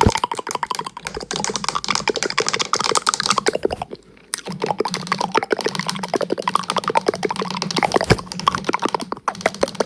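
Rapid, dense clicking and tapping. It stops briefly about four seconds in, then resumes over a low steady hum.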